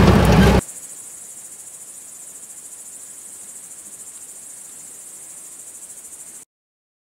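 Car engine and road noise heard inside the cabin for about half a second. Then a steady high-pitched chirring of crickets with a fine rapid pulse, which cuts off abruptly near the end.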